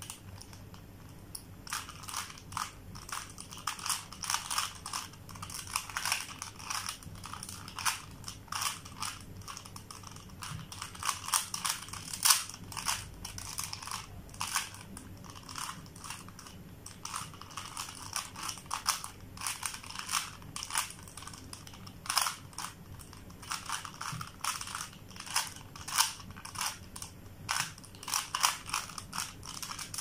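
A plastic 3x3 Rubik's cube being turned by hand: its layers click and scrape as they twist, in quick, irregular runs of several turns a second.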